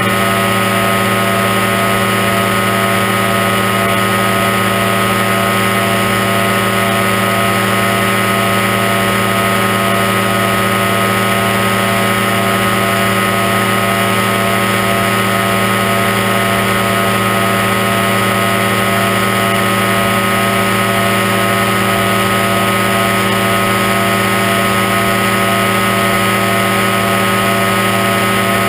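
Aerochute powered-parachute microlight's engine and propeller running steadily in cruise flight: one even drone that holds its pitch throughout.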